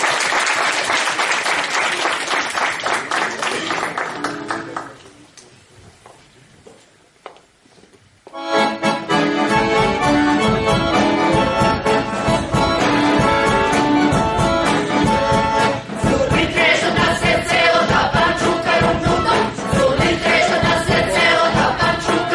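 Audience applause dying away about five seconds in. After a short lull, accordion-led traditional Macedonian folk music starts suddenly with a steady beat, and a mixed choir begins singing about halfway through.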